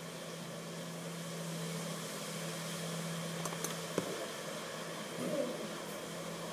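Quiet room tone: a steady low hum under even hiss, with one sharp click about four seconds in.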